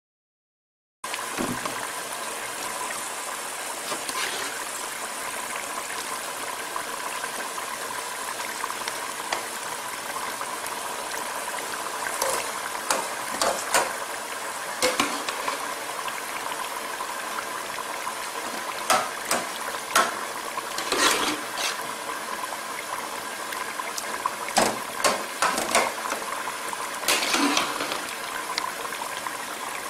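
Liquid at a rolling boil in a large aluminium pot, a steady bubbling hiss. From about twelve seconds in, a steel ladle knocks and scrapes against the pot in scattered clusters as cooked carrot is added and stirred in.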